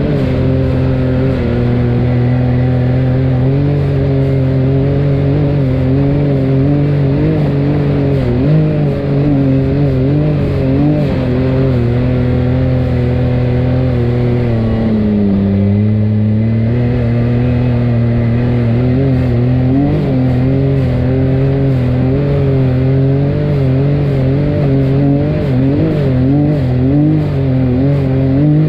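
Side-by-side UTV engine running under load on a trail, its pitch wavering with the throttle, dropping briefly and climbing back about halfway through.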